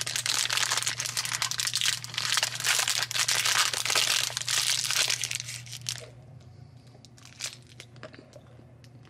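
Plastic film wrapper of a snack bar crinkling and tearing as it is pulled open by hand, a dense crackle for about six seconds, then stopping, with only a few faint clicks after.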